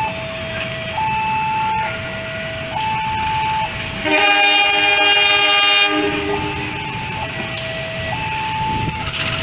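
A railway level-crossing alarm sounding a two-tone electronic signal that alternates about once a second. About four seconds in, a diesel locomotive's multi-tone horn blows once for about two seconds, and a low train rumble runs underneath.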